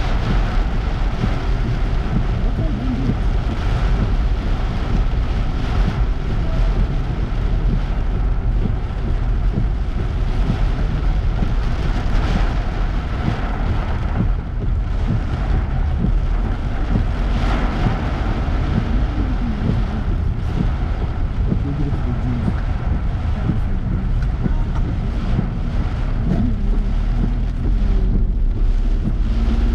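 Steady road and engine noise of a car driving on wet roads in the rain, a constant low rumble with tyre hiss.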